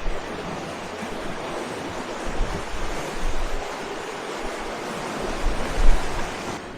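Sea water rushing and splashing along the hull of a sailing yacht under way, with wind gusting on the microphone in uneven low rumbles, the strongest gust near the end.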